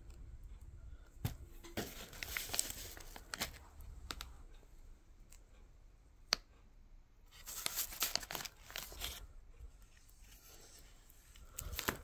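Plastic sleeves of a DVD binder crinkling and rustling as it is handled and a disc is slid out of its sleeve, in two main bursts with a few sharp clicks between.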